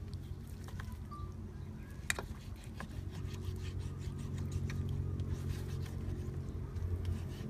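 Knife cutting raw pork on a wooden chopping board: scattered light clicks and taps, one sharper knock about two seconds in, over a steady low hum.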